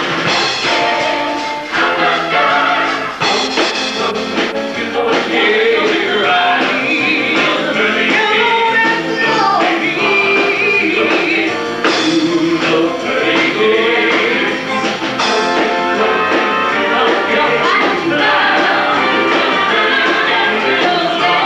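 Live stage-show song: voices singing over instrumental backing, without a break.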